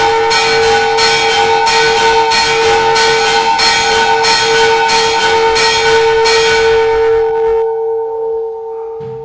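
Church bells struck in a quick, even rhythm, about one and a half strokes a second, each stroke ringing on into the next. The strokes stop about seven and a half seconds in and the ringing dies away.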